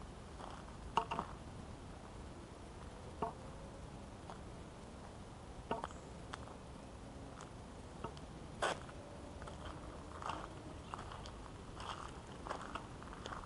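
Footsteps crunching on a gravel trail: scattered, irregular crunches and clicks over a steady background hiss, with the sharpest ones about a second in and again past the halfway point.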